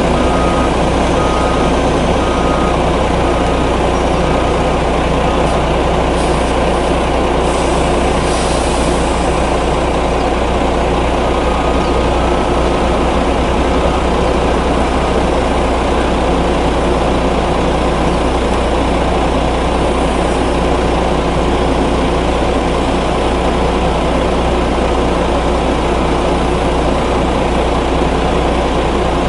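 Scania coal-hauling truck's diesel engine running steadily as its side-tipping trailer is raised to dump its load. A few evenly spaced warning beeps sound in the first seconds, and a brief hiss comes about six to nine seconds in.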